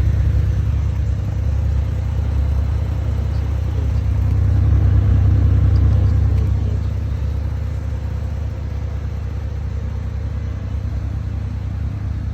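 Low, steady rumble from a car, swelling for a couple of seconds about four seconds in.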